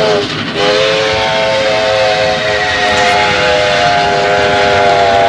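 Steam locomotive whistle blowing: one blast sags in pitch and cuts off just after the start, then a second long, steady blast sounds through the rest, over the steady running noise of the train.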